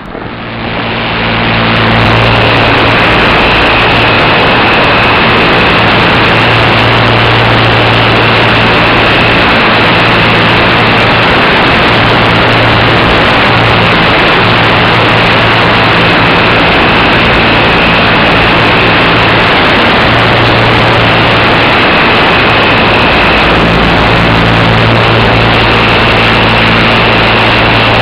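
Electric RC glider's motor and propeller running at steady power, heard from on board: a loud, dense rushing noise with a constant high whine and a low steady hum. The sound swells up over the first two seconds, then holds.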